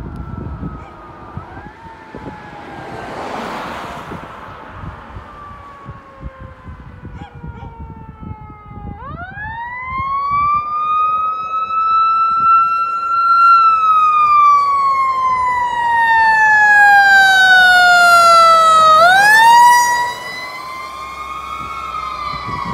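Fire tanker's siren approaching and passing: faint falling wails at first, then about nine seconds in a loud siren winds up into a long rising-and-falling wail. It rises again near the end and drops away in loudness as the truck goes by.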